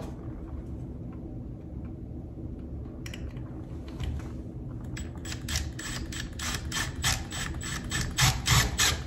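Compact cordless impact driver sinking a construction screw through a vertical-blind mounting bracket into the wall stud. It is quiet at first, then from about five seconds in comes a rapid run of sharp, regular impact clicks that grows louder toward the end as the screw bites.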